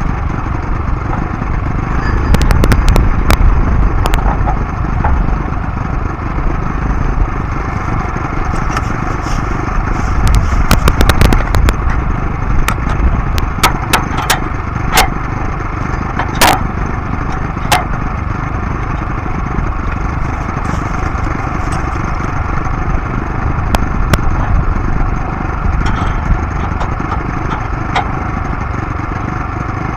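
Portable band sawmill's gasoline engine running steadily, with scattered sharp ticks throughout.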